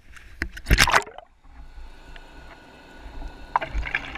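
Water sloshing and splashing at the pool surface, then just over a second in the sound turns muffled and even as the camera goes underwater, with bursts of bubbling near the end.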